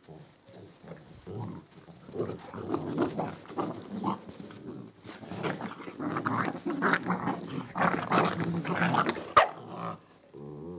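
Samoyed puppies and their mother growling in rough play, with short calls coming thick and fast from about two seconds in.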